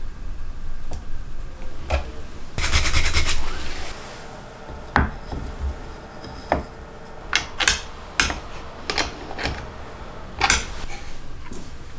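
Hands handling plywood jig parts and a bar clamp on a workbench: rubbing and scraping, a quick run of rapid clicks about three seconds in, then a series of separate light wooden knocks and taps as the pieces are set down and fitted together.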